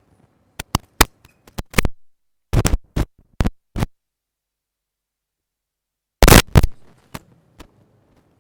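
Microphone handling noise: a run of sharp knocks and scrapes in three bursts, the loudest about six seconds in, with dead silence between them.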